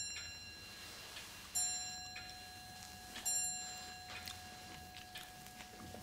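A bell-like chime struck at a steady pace: one stroke just before, then again about a second and a half in and about three seconds in, each ringing on at the same pitch and slowly dying away.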